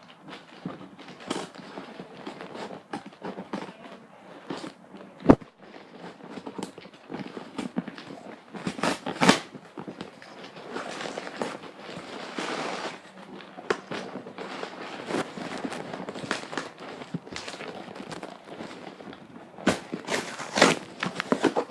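Cardboard box being pried and torn open by hand: irregular tearing, crackling and rustling of cardboard, with a sharp knock about five seconds in.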